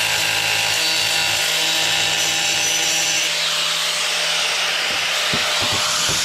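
Angle grinder cutting into a thin ceramic tile: a steady motor whine over grinding noise. About halfway through the whine drops out and a steady hiss carries on, with a few light knocks near the end.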